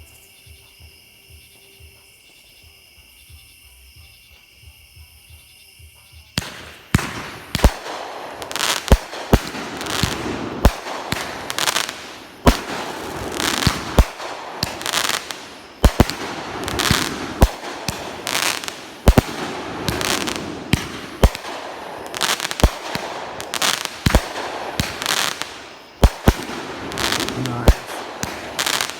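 Insects chirring steadily for about six seconds, then two consumer firework cakes (a 500-gram and a 200-gram) fired together: comets launching and breaking in a rapid string of sharp bangs, one or two a second, with crackle between them.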